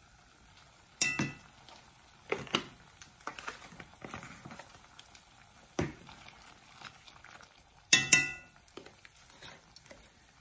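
Kitchen utensils and cookware clinking: a few separate sharp metallic clinks and knocks with a brief ring. The loudest come about a second in and around eight seconds in.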